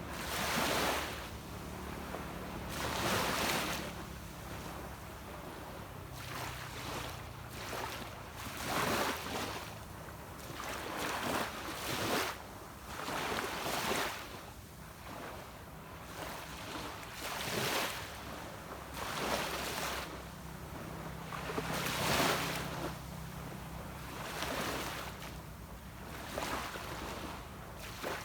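Small waves washing onto a beach, a rushing swell every two to three seconds, over the steady low hum of a distant boat's engine.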